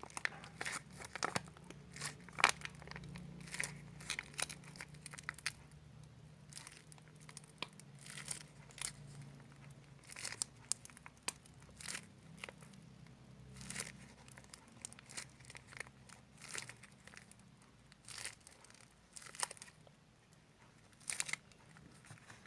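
Faint, scattered crinkles and clicks of a plastic glue bottle and container being handled as white PVA glue is poured out, over a faint low hum.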